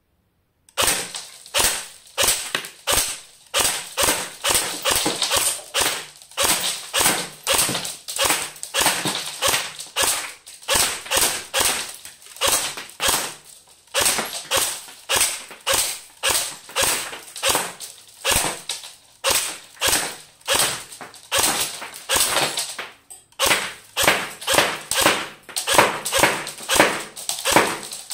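Cyma AK-47 airsoft electric rifle firing single shots in quick succession, about two a second, each a sharp crack with BBs striking and chipping the ceramic lamp base and punching the paper shade.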